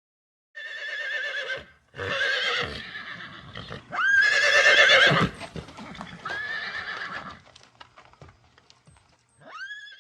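Horse whinnying repeatedly: five quavering calls, the loudest about four seconds in opening with a sharp upward sweep, with a scatter of light clicks between the last two calls.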